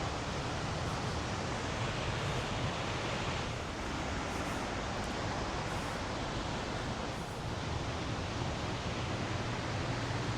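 Steady roar of Cumberland Falls, a large river waterfall, as heavy water crashes onto the rocks below, an even rushing noise that eases slightly twice.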